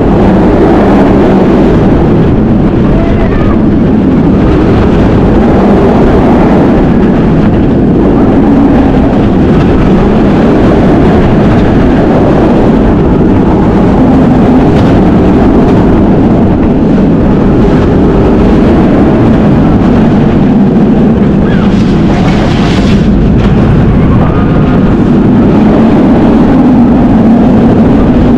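Onboard roller-coaster ride on Kumba, a steel looping coaster. Loud, unbroken wind rush and rumble of the train running along the track, with a brief brighter surge a little over twenty seconds in.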